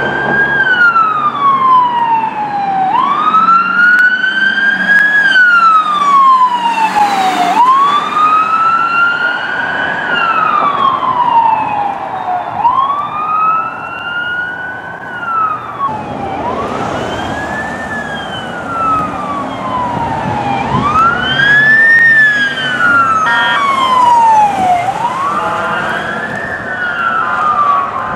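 Emergency vehicle siren sounding a slow wail, rising and falling about once every four to five seconds, over road traffic and engine noise.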